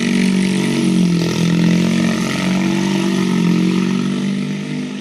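2008 Triumph T100 Scrambler's parallel-twin engine running at low revs as the motorcycle rides away, its pitch rising and falling a little with the throttle and beginning to fade near the end.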